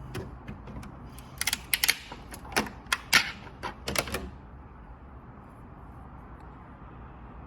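A 3D-printed plastic mini fidget cube clicking as it is worked by hand: a quick run of sharp clicks for about three seconds, then it stops, leaving a steady low background noise.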